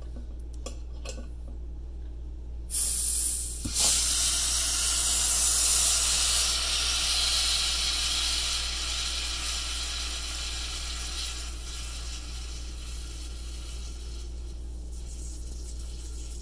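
Light metal clicks of a bottle opener working at a crown cap, then a sudden loud hiss about three seconds in as carbon dioxide and foam rush out from under the partly lifted cap of an over-carbonated homebrew beer bottle. The hiss slowly fades over the following ten seconds as the pressure bleeds off.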